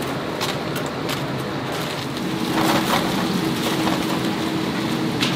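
Hot oil sizzling steadily as chicken deep-fries in a cauldron, with scattered clicks and knocks.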